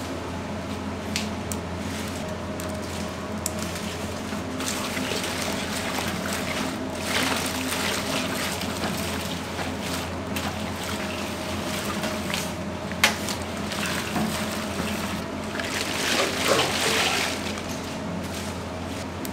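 Green onions being hand-mixed with wet kimchi seasoning: squishing and rustling that swells and fades, over a steady low hum. There are a couple of sharp clicks.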